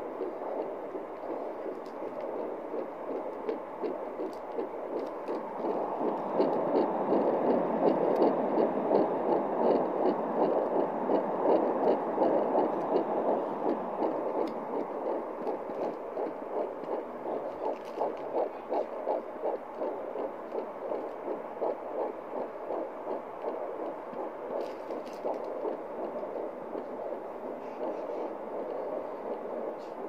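Handheld home fetal Doppler playing an 11-week fetus's heartbeat through its speaker: a fast, even pulsing at about 160 beats a minute. It grows louder about six seconds in and eases back a little after about fourteen seconds.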